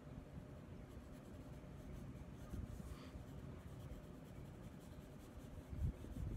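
Faint scratching of a pencil on drawing paper: short, repeated shading strokes. A soft low bump a little before the end.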